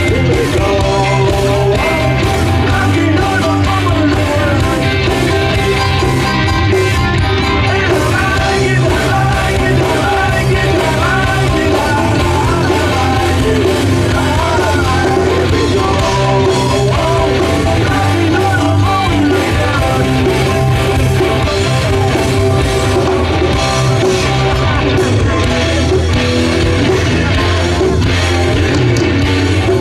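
Live rock band playing loudly: electric guitars, bass guitar and drums, with a man singing lead.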